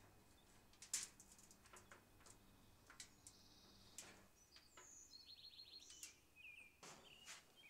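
Near silence with faint bird chirps and a short trill in the background, scattered faint clicks, and a low hum that stops about four seconds in.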